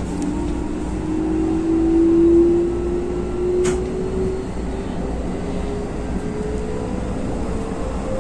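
Keikyu electric train running on open track: a motor whine slowly rising in pitch as the train gathers speed, over a steady low rumble of wheels on rail. There is one sharp click about three and a half seconds in.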